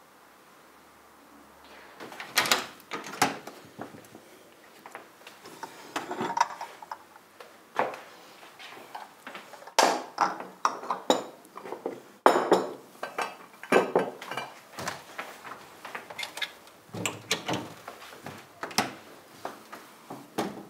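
Crockery and cutlery clinking and knocking as they are taken out and set down on a wooden table, in irregular clinks and knocks that start about two seconds in.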